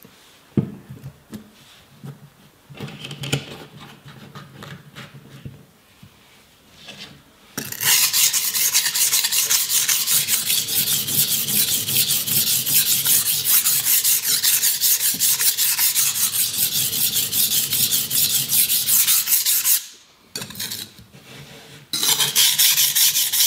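Cheap Ikea kitchen knife sharpened by hand on the fine side of a cheap hardware-store combination water stone: steel rasping steadily back and forth on the wet stone for about twelve seconds, then again briefly near the end. Before that come light knocks as the stone is handled and set in its holder.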